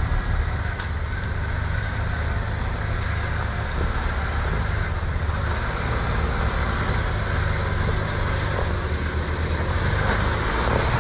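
Off-road Jeep engine running steadily, a low even drone, with a brief click about a second in.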